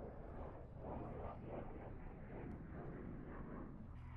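Distant jet aircraft roar, a rushing noise that swells and fades over a low rumble.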